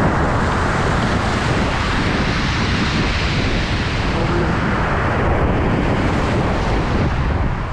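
Sea waves breaking and washing over a pebble beach, the hiss swelling about three seconds in and easing off, with wind rumbling on the microphone.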